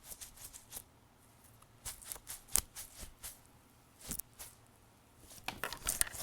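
Glitter dumpling squishy toy being squeezed and handled close to the microphone: scattered short crackles and sticky clicks, with a few louder ones about two and a half and four seconds in and a cluster near the end.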